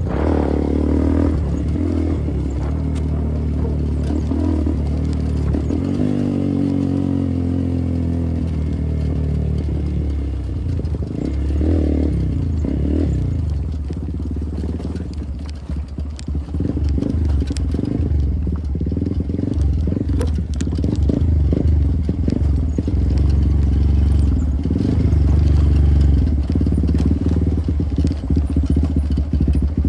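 Motorcycle engine running under way, its revs rising and falling as the rider works the throttle and gears. In the second half it is joined by frequent clattering knocks and rattles.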